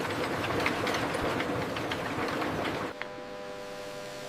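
Industrial machinery clattering densely with many small knocks. About three seconds in it cuts abruptly to a quieter, steady machine hum made of several even tones.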